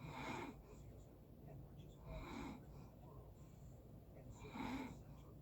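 A person snoring softly and rhythmically, with a rasping snore breath about every two seconds: three in all, one at the start, one about two seconds in and one near the end.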